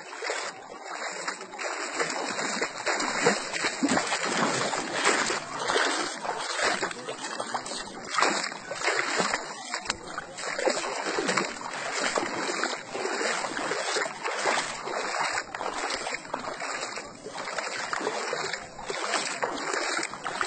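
Seawater floodwater splashing and sloshing: a steady watery noise broken by many short, irregular splashes.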